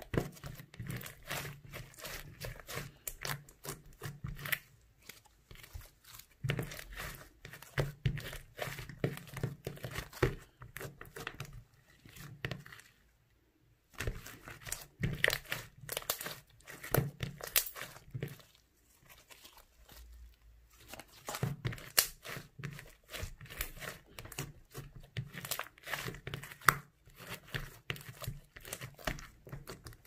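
Clear glitter slime, slightly sticky and melted, being squeezed, stretched and pressed by hand, giving rapid sticky crackling clicks and pops. The handling stops briefly near the middle.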